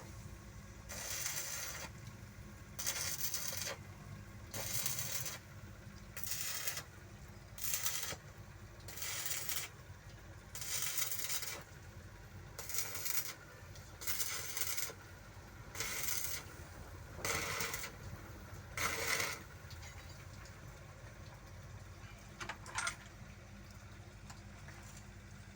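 Rhythmic scraping strokes, about a dozen, one every one and a half to two seconds, that stop a few seconds before the end, followed by a single click; a steady low hum runs underneath.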